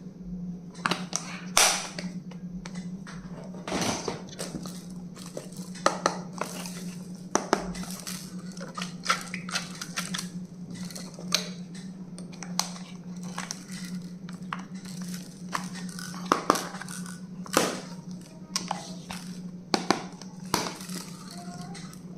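Stationery and its packaging being handled: irregular clicks, taps and light crinkling, some sharper than others, over a steady low hum.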